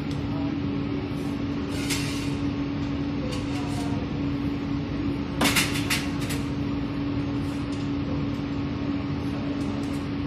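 Steady hum of commercial pizza-kitchen equipment with a constant low drone. A few sharp clatters come about five and a half to six seconds in as metal pizza pans are handled.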